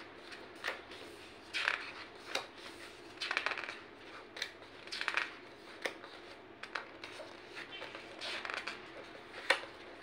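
Pages of a large hardcover picture book being turned one after another: repeated short paper swishes, some ending in a sharp paper snap.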